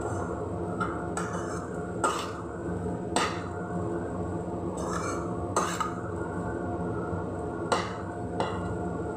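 Steel spoon stirring and scraping millet vermicelli in a non-stick pan, with half a dozen sharp clinks of the spoon against the pan over a steady hum.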